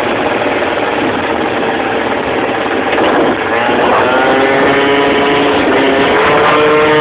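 Motor scooter engine running under heavy rushing wind noise. From about three and a half seconds in, the engine's note comes through as a steady drone that climbs a little in pitch.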